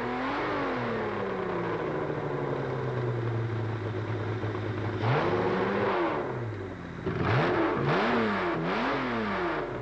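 Drag racing engine with chrome injector stacks, idling steadily and being blipped by hand. There is a single rev about five seconds in and several quick revs near the end, each rising and falling in pitch.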